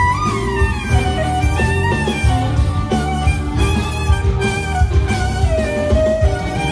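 Clarinet playing a melody full of pitch bends and slides, over band accompaniment with a steady beat.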